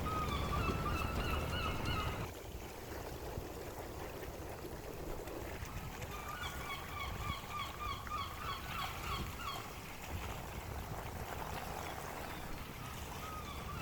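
Small lake waves lapping with wind, under a bird giving rapid runs of short, nasal repeated calls, once at the start and again from about six to ten seconds in.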